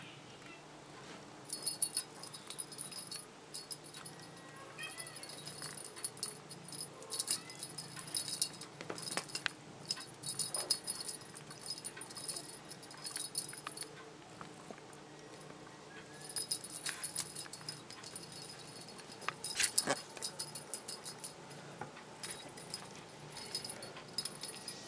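A small bell on a feather wand cat toy jingling in repeated bursts as the toy is jerked about and batted, with scattered light clicks and one sharp knock about three-quarters of the way through.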